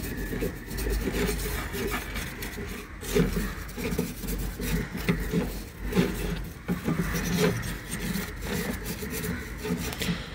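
A brush scrubbing a motherboard wet with thinner: irregular scratchy rubbing strokes, with a low rumble underneath.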